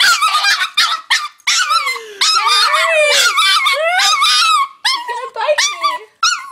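A Yorkshire terrier whining and crying in a long run of high, wavering whines that rise and fall in pitch, with a few lower, drawn-out cries in the middle. These are distress whines at being kept from the hamster, which the owners read as heartbreak.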